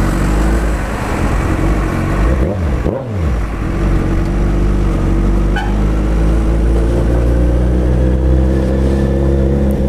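Suzuki Hayabusa's inline-four engine running loud through open straight pipes with the silencers removed. It holds a steady note, dips briefly in pitch around three seconds in, then settles and climbs slightly toward the end.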